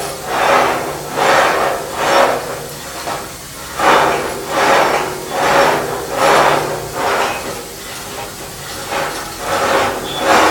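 Holmes pipe reamer at work: the cleaning lance's steel shoe scraping inside the spinning pipe, a grinding hiss that swells and fades in a steady rhythm a little over once a second over the low hum of the machine.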